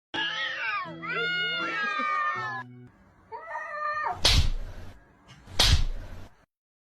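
Cats yowling at each other in long, wavering calls that bend up and down in pitch. Then come two loud, harsh bursts about a second and a half apart, after which the cats go silent.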